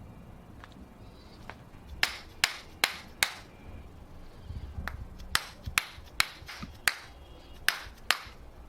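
A series of sharp knocks, mostly in pairs or threes about 0.4 seconds apart, starting about two seconds in.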